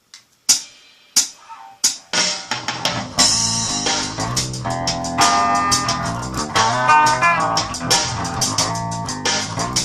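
Dean Rhapsody 8-string bass, with its paired octave strings, played over a programmed drum loop. It opens with three sharp hits, then from about two seconds in a steady groove of low bass notes with higher ringing notes above them.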